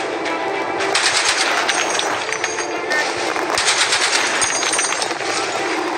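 Browning M2 heavy-barrel .50-calibre machine gun on a remote-controlled mount firing in short bursts: two rapid strings of heavy shots, the first about a second in and the second at about three and a half seconds.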